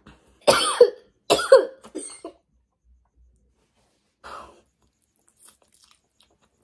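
A woman coughing hard twice, about a second apart, each cough a sudden burst that trails off falling in pitch, then a much fainter cough about four seconds in: a reaction to very hot, spicy food.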